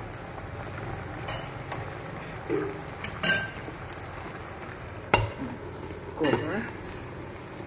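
Water boiling steadily in a frying pan while a metal spoon pushes sweet potato leaves down, with a few sharp clinks of the spoon against the pan, the loudest about three seconds in. About five seconds in, a glass pot lid clacks down onto the pan.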